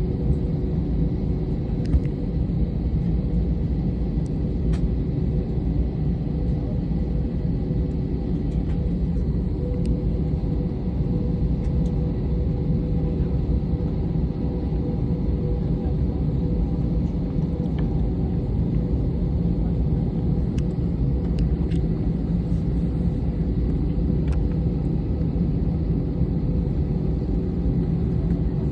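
Steady low rumble of a jet airliner's cabin with the engines running at idle, a faint steady whine over the drone and a few small clicks.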